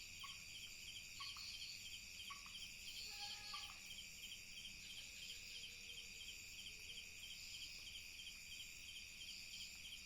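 Night insect chorus, crickets trilling in a steady pulsing rhythm. In the first four seconds an unseen animal gives four short calls about a second apart, then a brief, fuller call.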